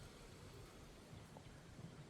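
Near silence: faint room tone, with one tiny click about a second and a half in.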